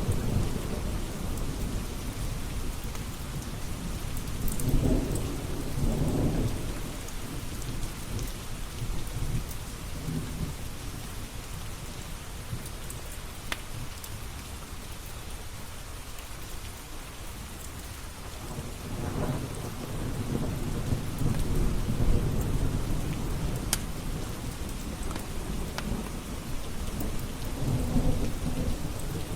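Steady rain with rolling thunder, the low rumble swelling three times: about five seconds in, again past the middle, and near the end.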